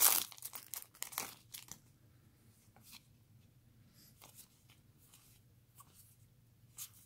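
A foil booster-pack wrapper crinkling and tearing as it is pulled open, for about the first second and a half. After that come a few faint, scattered clicks of trading cards being slid through the hands.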